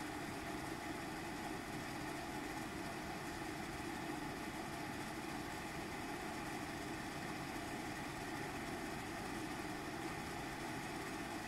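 Home mechanical ventilation (VMC) extractor fan running on its second, higher speed: a steady rush of air with a low hum from the motor, holding an even level throughout.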